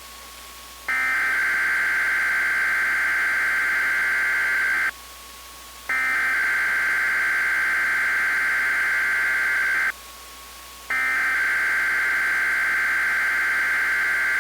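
Weather radio SAME (Specific Area Message Encoding) digital header, sent three times as bursts of buzzing data tones about four seconds long with a second's pause between them. It marks the start of a Required Weekly Test. A faint steady tone sounds in the pauses.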